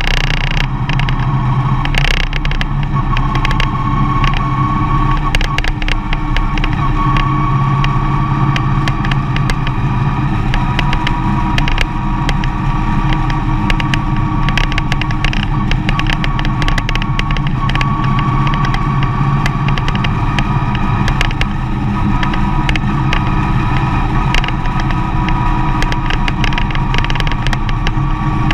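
Mercedes-Benz Vito van driving: steady engine and road noise with a faint whine that wavers slightly in pitch.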